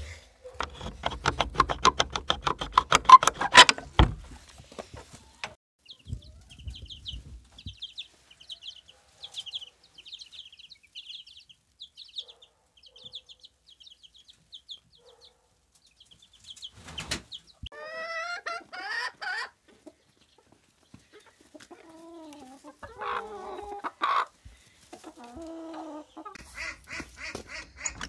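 Young chicks peeping in a long run of short high cheeps, with louder chicken calls in the second half. In the first few seconds a galvanised barrel bolt on a wooden shed door rattles and slides, ending in a sharp clack.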